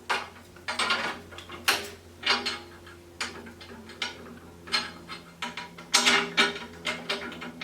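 Irregular clicks and knocks of electric tiller parts being handled and fitted together by hand, about a dozen over several seconds.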